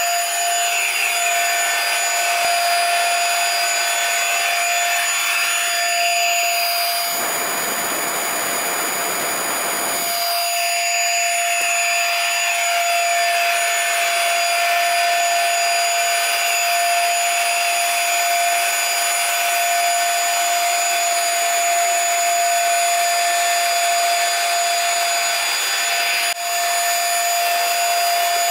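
QOUTOO cordless stick vacuum running steadily, a constant motor whine over the rush of air, as its floor head is pushed over parquet. For about three seconds, a quarter of the way in, the rushing turns fuller and lower.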